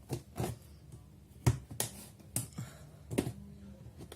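Fingers picking and scratching at the tape seal on a cardboard keyboard box to break it: scattered sharp clicks and short scratches, the sharpest about a second and a half in.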